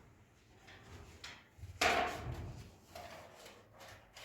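A few light knocks and clatters of objects being handled; the loudest comes about two seconds in.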